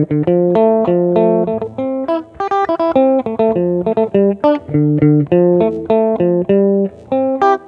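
Stratocaster-style electric guitar picking a konpa groove: a quick, rhythmic run of short single notes and two-note chords with brief gaps between them, pausing near the end.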